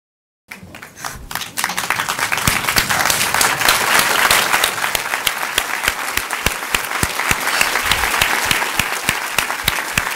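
Crowd applauding: the clapping starts abruptly about half a second in, fills out within a second or so, and carries on steadily.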